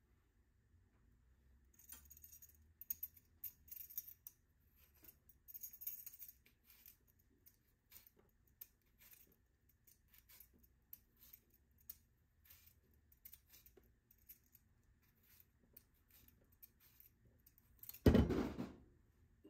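Kitchen knife blade shaving the skin off a potato held in the hand: a run of soft, irregular scrapes and small clicks. Near the end there is one louder knock.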